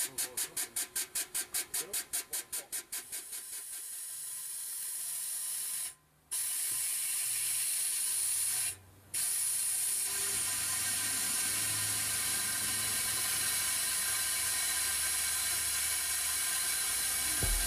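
Compac A5816-C air-hydraulic jack working on compressed air: its air pump pulses rapidly, about five strokes a second, then fades out about three seconds in to a steady hiss of air as the jack makes a controlled descent under the bus. The hiss cuts out twice briefly, a few seconds apart.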